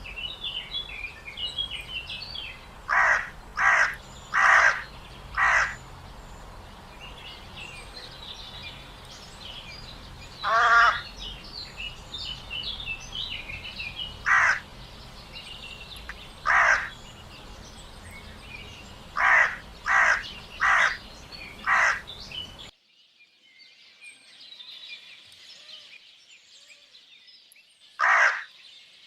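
Crows cawing in short calls, mostly in runs of four, with small birds chirping in the background. About two-thirds of the way through, the sound cuts to a quieter recording with a single caw near the end.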